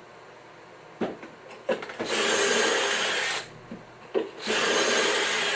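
Two pocket holes drilled into wood with a drill and stepped pocket-hole bit, each a steady, noisy grind lasting about a second. A few sharp knocks come before and between them.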